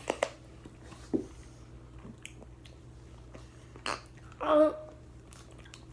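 Mouth noises from eating Warheads extra-sour candy: small wet clicks and smacks while chewing and sucking. A short vocal sound about four and a half seconds in is the loudest moment.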